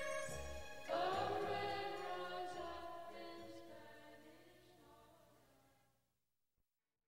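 Ending of a 1960s folk-rock song: mixed male and female voices in close harmony with the band land on a final chord about a second in, which rings and fades away to silence about six seconds in.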